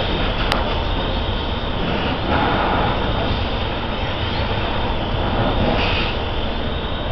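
Fire engine's engine running steadily, a loud constant rumble with hiss. A single sharp click about half a second in.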